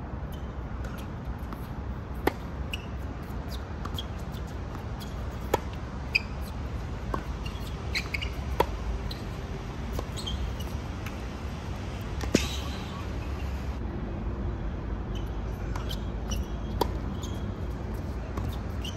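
Tennis ball struck by rackets and bouncing on a hard court during a rally: sharp single pops a second or more apart, the loudest about two-thirds through, over a steady outdoor rumble.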